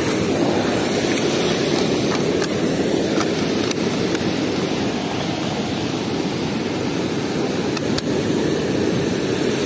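Water rushing steadily through an open weir sluice gate, a constant roar, with a few faint clicks over it.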